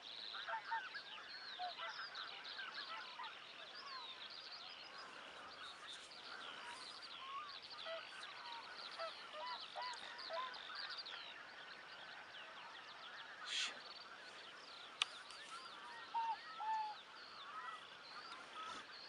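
Large mixed flock of wild geese and swans calling: a dense, continuous chorus of many overlapping honks. A single sharp click comes about three quarters of the way through.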